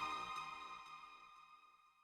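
Background electronic music: a held note rings on and fades away, dying to near silence about a second in.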